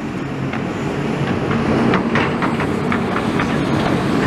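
Demolition clear-up: a steady low mechanical rumble of heavy plant running, with irregular clanks and clatters of rubble and debris being moved.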